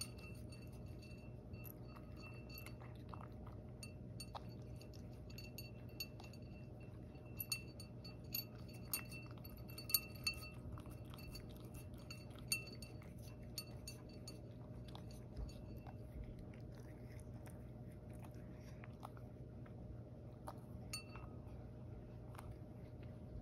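Cat eating from a ceramic bowl: quiet chewing, with repeated light clinks as its mouth knocks against the bowl, each clink ringing briefly. The clinks come often at first and thin out after about 13 seconds.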